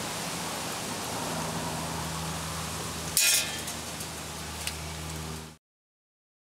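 Steady background hiss with a low hum, broken about three seconds in by a short, sharp clatter; the sound cuts off abruptly near the end.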